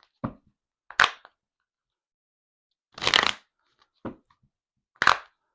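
A deck of tarot cards being shuffled and handled: five short crisp rustles of cards, roughly a second apart, the one about three seconds in the longest.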